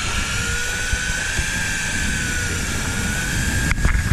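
Boat motor running steadily, a low rumble with a thin whine that wavers slightly in pitch, and a couple of short knocks near the end.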